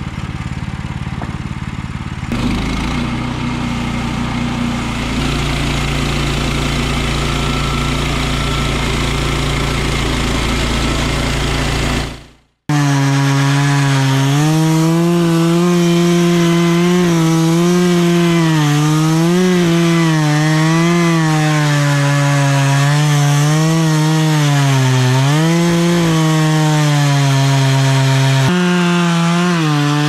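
A portable bandsaw sawmill's small gas engine running steadily, a little louder from about two seconds in. After a short break it gives way to a chainsaw crosscutting a log at full throttle, its pitch dipping and rising as the chain loads up in the cut.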